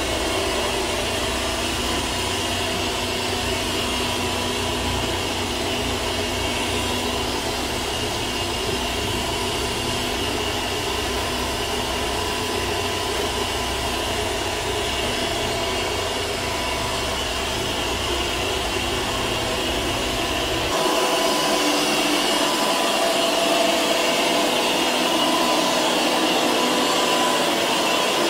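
Fuzoto robot vacuum cleaner running, a steady whirring with a few constant tones. About three quarters of the way through it becomes abruptly louder and loses its low rumble.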